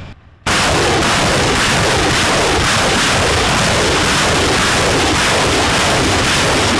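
BM-21 Grad multiple rocket launcher firing a salvo: rockets launch one after another in rapid succession, making one continuous loud roar that starts suddenly about half a second in.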